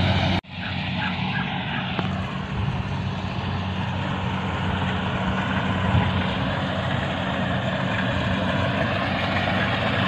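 Rice combine harvester running steadily while it cuts and threshes, its engine and machinery heard across the field. The sound cuts out for an instant about half a second in, then carries on steadily.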